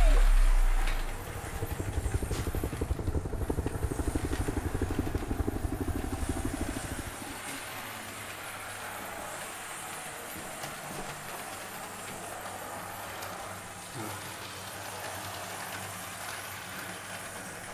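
HO-scale model train running on the layout track. A fast, fluttering rattle of the small motor and wheels lasts for the first several seconds, then settles into a quieter steady hum with faint hiss. One small knock comes about fourteen seconds in.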